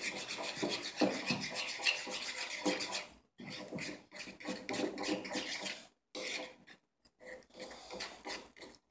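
Metal spoon stirring and scraping against a ceramic bowl, working a glue, baking soda and saline slime mixture; quick repeated scraping strokes with a few brief pauses.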